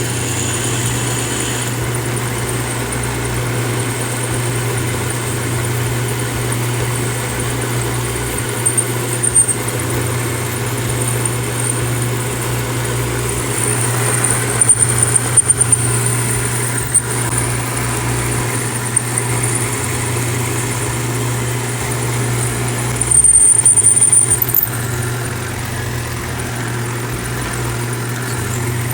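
A machine tool's motor runs steadily while a 5–6 mm drill bit bores through a small turned bushing, with a thin high cutting whine that comes and goes. There is a louder stretch of cutting about 23 seconds in.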